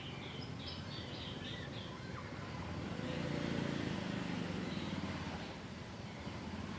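Outdoor background noise with a quick run of high bird-like chirps in the first second, then a low rumble that swells in the middle and fades.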